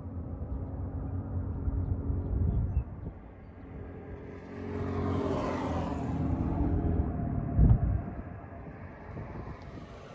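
A motor vehicle engine running, then a vehicle passing by with its road noise swelling and fading around the middle. A short low thump comes near the end.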